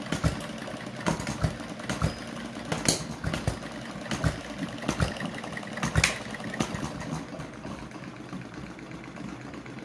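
Model four-stroke hit-and-miss stationary engine running: irregular sharp firing pops, one or two at a time with uneven gaps between them as it fires and then coasts on its flywheels. After about seven seconds the pops grow fewer and weaker, leaving a steady low mechanical running sound.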